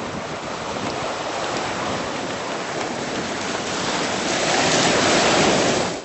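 Ocean surf washing in with some wind noise, swelling louder over the last two seconds and then cutting off suddenly.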